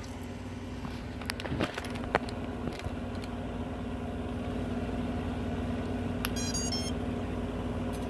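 A steady low hum, with a few light clicks in the first three seconds from handling the 7-inch FPV drone as it is powered up. About six seconds in comes a brief burst of high electronic chirping.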